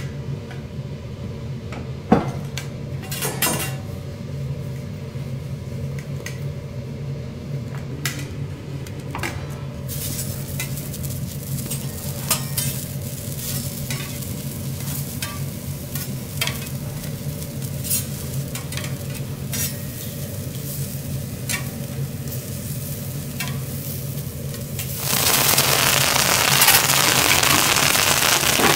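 Vegetables sizzling in oil on a hot teppanyaki steel griddle, over a steady low hum, with scattered sharp clicks. A much louder sizzle starts about 25 seconds in and lasts until near the end.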